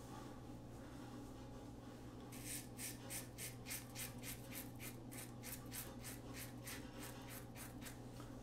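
Single-edge injector razor scraping through thick stubble in quick, short strokes, about three a second, starting a couple of seconds in.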